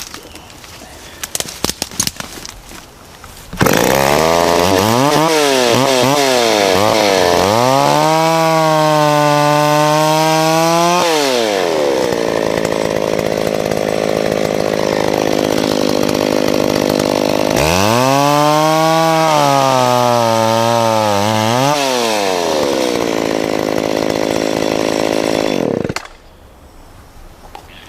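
Vintage McCulloch Pro Mac 650 two-stroke chainsaw comes in loud a few seconds in and revs up and down. It then bucks through a felled tree trunk, its engine note dropping and roughening under load in two stretches with a rev in between, and stops abruptly near the end.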